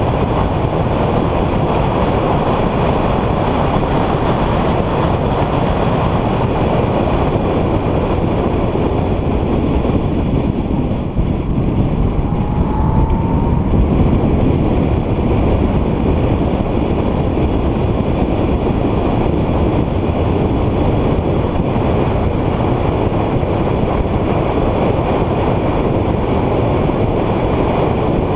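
Car engine and road noise heard from inside the cabin while the car is driven at speed on a circuit: a loud, steady rumble. About eleven seconds in it dips briefly, and a faint rising whine comes through.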